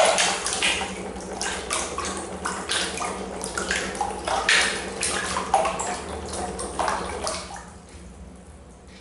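Water splashing and sloshing in a plastic tub, churned by a small coil-driven neodymium-magnet piston engine, in irregular splashes that die away about seven and a half seconds in as the water settles. A steady low hum runs underneath.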